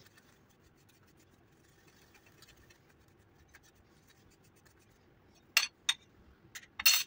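Fingertip rubbing ground flaxseed, garden cress seed and sidr leaf powder through the mesh of a small plastic sieve. It is a faint scratching for most of the time, with a few louder scratching strokes near the end.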